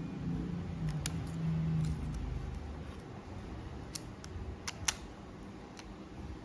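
A few short, sharp clicks or taps, one about a second in and a cluster around four to five seconds in, over a low hum that fades after about two seconds.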